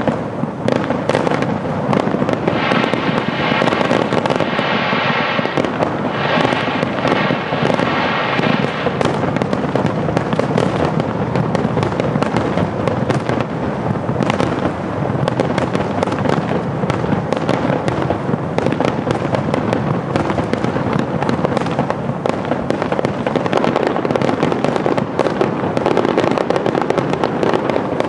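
Aerial fireworks: a dense, continuous barrage of bursts and crackling that never lets up.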